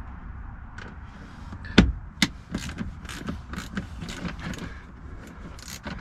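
Small wrench working the T20 Torx screws under a car's glove box: two sharp metal knocks about two seconds in, then a run of light clicks as the tool turns.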